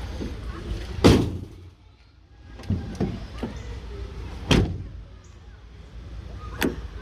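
Three sharp knocks or bangs, the loudest about a second in, with a few fainter knocks between, over a low steady rumble.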